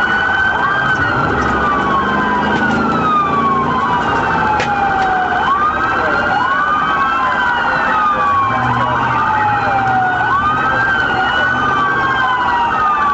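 Several police car sirens wailing at once, out of step with each other, each rising quickly and falling slowly in pitch, heard from inside a pursuing police car over its engine and road noise.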